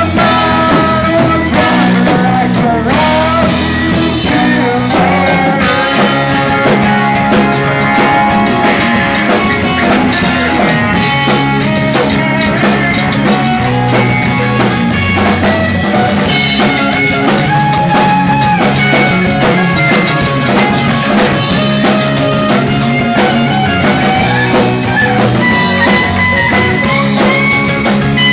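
Live rock band playing, with electric guitars, keyboard and drum kit.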